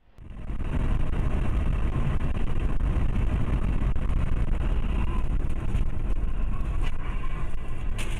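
Steady low road and engine rumble of a car driving at highway speed, heard from inside the cabin. There are two brief sharp clicks, about seven and eight seconds in.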